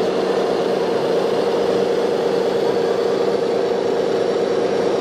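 A steady engine-like motor hum, holding one pitch without revving.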